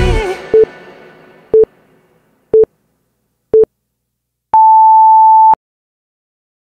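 Electronic countdown timer beeps marking the end of an exercise interval: four short low beeps a second apart, then one longer, higher beep about a second long. Background music fades out at the start.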